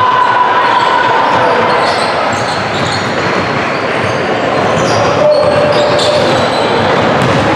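Basketball game noise in a gym: a ball bouncing on the hardwood court amid a steady, echoing din of players and spectators.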